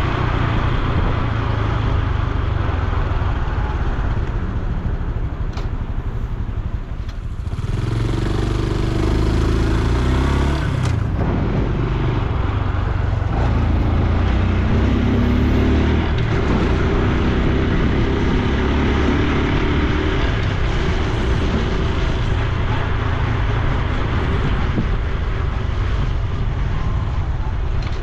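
Honda Super Cub C125's single-cylinder four-stroke engine and exhaust running under way. It eases off briefly about a quarter of the way in, then pulls again and runs on steadily.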